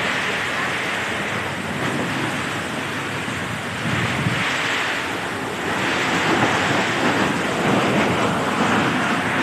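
Heavy typhoon rain and wind: a loud, steady rush that swells about four seconds in and again about six seconds in.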